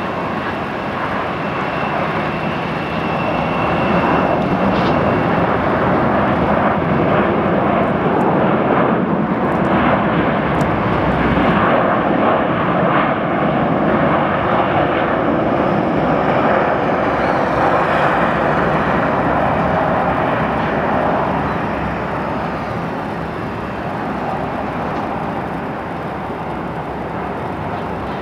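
Jet engine noise from an Airbus A319-132's IAE V2500 turbofans as the airliner rolls out after touchdown. The noise swells over the first few seconds, holds, and fades after about twenty seconds as the plane slows.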